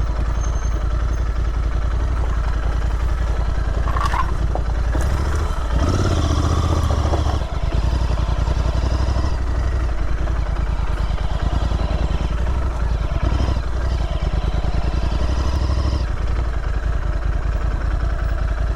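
Royal Enfield Interceptor 650's parallel-twin engine running at low revs, with a short rise in revs about six seconds in.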